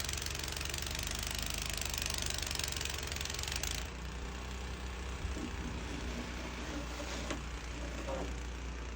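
An engine running steadily with a low hum, under a hiss that drops away abruptly about four seconds in.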